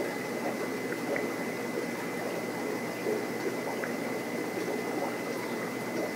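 Reef aquarium water circulating: steady bubbling and trickling with small scattered crackles, and a faint steady high tone.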